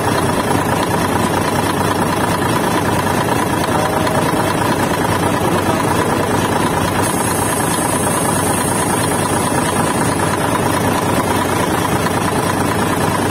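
Truck diesel engine idling steadily, a continuous even running sound.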